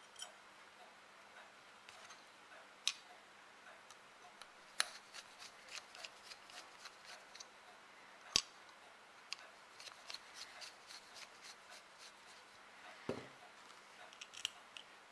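Faint small metal clicks and taps as a screwdriver drives the screw of the brass trigger guard into a reassembled Uberti 1860 Army revolver frame. There are a few sharper clicks about 3, 5 and 8 seconds in, a run of light ticks through the middle, and a short rub near the end.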